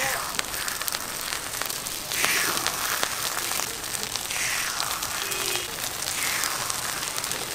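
Hot oil sizzling in a deep fryer, a steady hiss full of small crackling pops, swelling every couple of seconds as battered market fried food (twigim) cooks.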